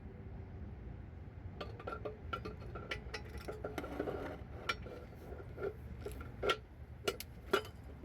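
Steel parts of a five-speed manual transmission (shaft, gears and bearings) clinking and tapping together as they are handled during reassembly. The light metallic clicks come irregularly, with the sharpest ones near the end.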